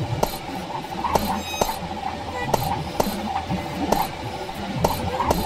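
Experimental electronic sound piece: sharp clicks at irregular intervals, roughly two a second, over a steady low hum and a sustained mid-pitched drone.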